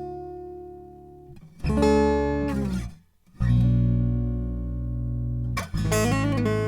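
Acoustic guitar played in chords: a ringing chord dies away, then fresh chords are struck about a second and a half in, after a brief stop around three seconds, and again near six seconds, where a few notes waver in pitch.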